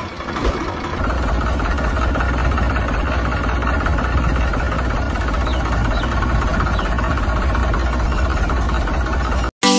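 Tractor engine running steadily with a low rumble, settling into its even run about a second in.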